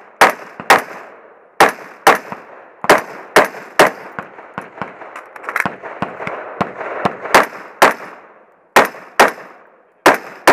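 Carbine firing a fast string of shots, about fifteen sharp cracks in quick pairs and singles, each trailing a short echo, with a few fainter pops between shots around the middle.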